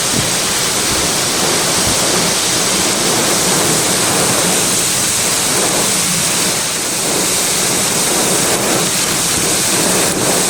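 Severe thunderstorm wind gusts with driving rain, a loud, steady rushing noise.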